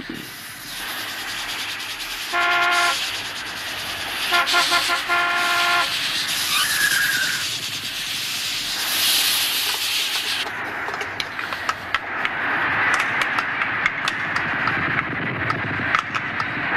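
Animated-film airport noise: jet engines running with a loud, continuous rushing sound, cut by a short horn blast about two seconds in and a longer one a couple of seconds later.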